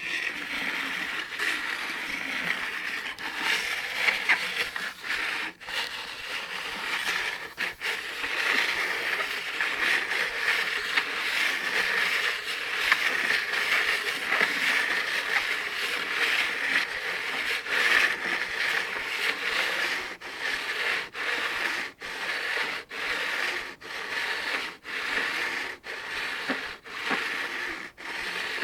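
Cartridges being pressed one after another into a 75-round AK-47 drum magazine, a continuous scraping and clicking of rounds against the feed lips. From about twenty seconds in it falls into a steady rhythm of about one round a second.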